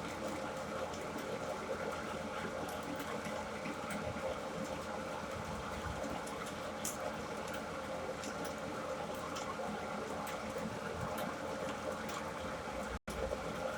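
Metalworking machine running steadily while drilling out a metal workpiece for an airgun chamber, a steady hum with a few faint clicks. The sound cuts out for an instant near the end.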